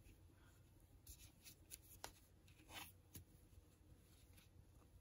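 Faint, irregular scratching and rustling of a metal crochet hook pulling yarn through single crochet stitches, close to the microphone.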